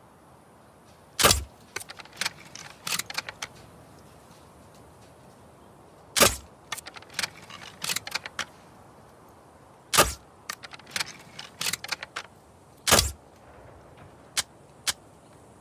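Crossbow shots: four sharp loud snaps, a few seconds apart, each followed by a quick run of smaller clicks and rattles.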